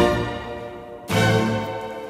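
Instrumental background music: a held chord fades away, then a new chord comes in suddenly about a second in.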